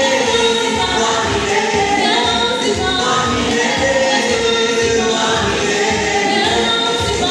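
Gospel praise singing by a choir over music with a steady low beat.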